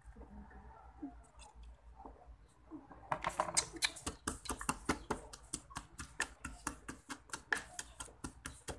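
Wooden pestle pounding chopped siling labuyo chilies and calamansi in a wooden mortar: a rapid run of sharp knocks, several a second, starting about three seconds in, after a few seconds of faint handling.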